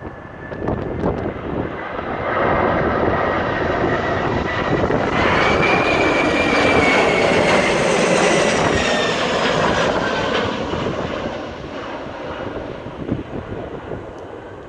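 Jet airliner on landing approach passing close by: engine noise swells up about two seconds in, with a whine that rises and then slides down in pitch as it goes past, and fades away after about ten seconds. Gusty wind buffets the microphone throughout.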